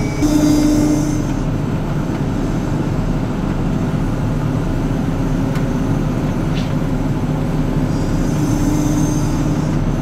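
Case IH Axial-Flow 7088 combine harvester running steadily as it drives along, a constant machine drone. A higher whine fades about a second in and comes back near the end.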